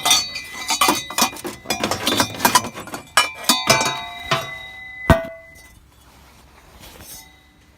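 Metal parts and tools clinking and clanking against each other in a rapid, irregular run, with ringing tones. A louder ringing metal strike comes about five seconds in, after which it goes quiet.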